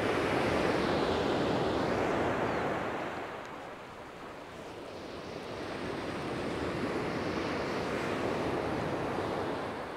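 Surf breaking and washing up a shingle beach. Two waves come in, one loud at the start and another building from about six seconds in.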